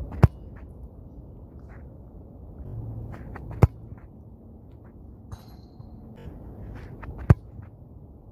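Football struck hard three times for long-range shots at goal, each kick a single sharp thud, about three and a half seconds apart.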